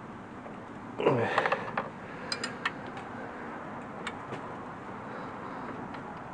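Metal hand tools clinking and scraping against the engine: a quick scrape about a second in, then a run of sharp clinks, over steady background noise.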